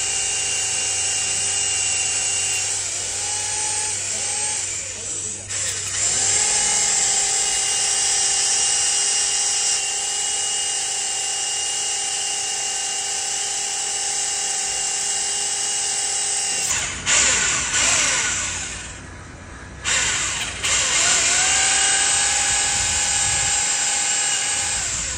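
Electric drill drilling into an engine's metal, a steady high whine that sags in pitch briefly, stops and starts again several times. About two-thirds of the way through, a louder rough grinding stretch breaks in before the drill settles back to its steady whine.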